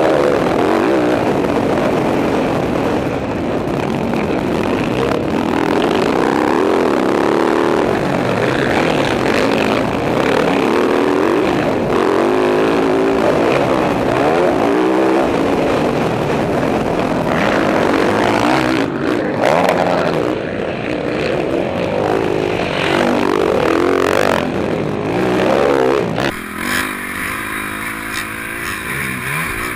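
Motocross bike engine heard close up from a helmet camera, revving up and down repeatedly as the rider races around the track. About 26 seconds in, the sound cuts to a second rider's helmet camera, quieter, with a steady high hiss.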